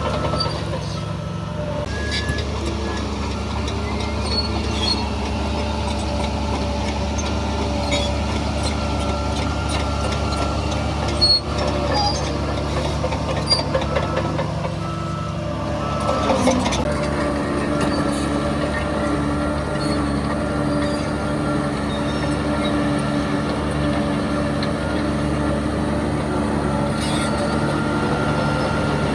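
Heavy diesel earthmoving machinery running steadily, with a few short clanks about halfway through and a change in the engine note a little later.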